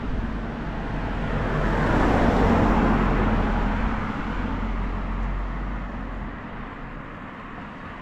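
A car driving past: tyre and engine noise swelling to a peak about two and a half seconds in, then slowly fading away.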